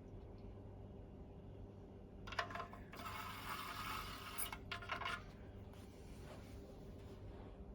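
Water squirted from a syringe into the boiler of a Mamod SE1 toy steam engine while it is being filled: a clink about two seconds in, then a hissing squirt of about two seconds with a few small clicks against the metal.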